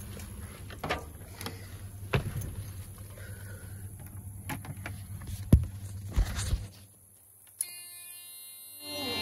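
Thumps and knocks of someone climbing the steps into a semi truck cab over a steady low hum. The hum drops away after a last couple of thumps as the door shuts. About a second later a steady tone comes on as the ignition is switched on.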